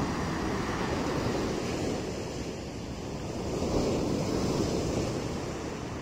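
Sea waves breaking and washing up a sandy beach in continuous surf, one surge rising again about four seconds in, with wind buffeting the microphone.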